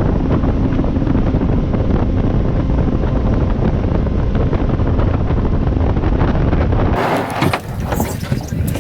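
Boat running at speed, a steady loud rush with heavy wind buffeting the microphone. About seven seconds in it cuts off abruptly to quieter open air with a few sharp knocks.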